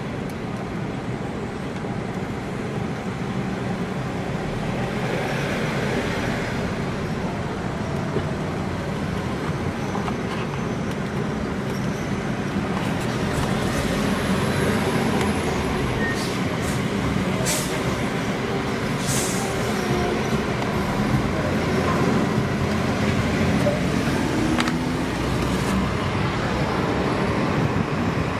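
Steady road traffic, cars and trucks passing on a busy road, with a few short hisses about halfway through.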